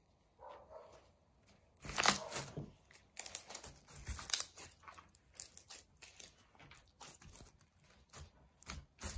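Clear homemade slime being poked, stretched and squished by hand, giving off irregular sticky crackles, pops and tearing sounds, loudest about two seconds in.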